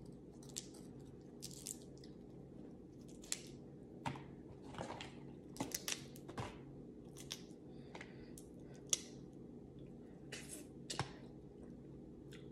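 Crab leg shells being cracked and picked apart by hand, giving a dozen or so scattered short sharp cracks and snaps, with faint chewing between them.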